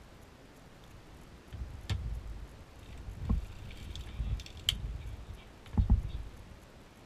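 Hand-cranked circular sock knitting machine being handled: irregular low knocks and a few sharp metallic clicks as its needles and cam parts are worked by hand, with no steady cranking rhythm.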